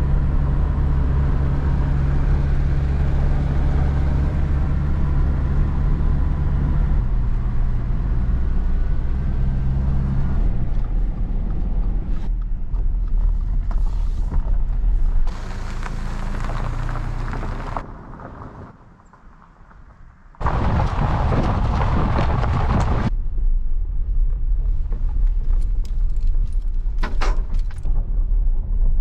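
Subaru on the move, heard as a steady low engine-and-tyre drone inside the car. The sound changes abruptly several times and sinks to a faint hum for a couple of seconds about two-thirds through, and near the end a few sharp clicks come as it runs on a gravel road.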